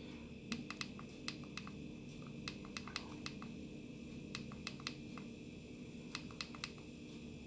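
Kangertech Topbox Mini Platinum Edition box mod's buttons clicking, pressed over and over in small irregular groups to step through the menus into temperature-control mode.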